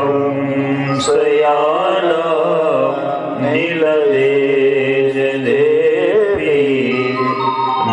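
A man chanting a Sanskrit verse in a slow, melodic recitation, holding long wavering notes, over a steady sustained instrumental accompaniment.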